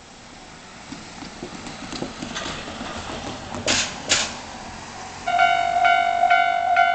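Railway level crossing warning bell starting to ring about five seconds in: a loud electronic ding repeating a little over twice a second, the crossing's signal that a train is approaching. Before it, a rising background hiss with two short sharp noises.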